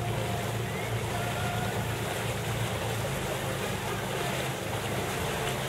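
Motorboat engine running steadily, a constant low hum, with water and wind noise around it.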